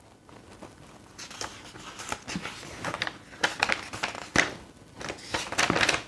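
Paper pages of an instruction booklet rustling and crackling as they are handled and turned, in irregular bursts that grow louder near the end.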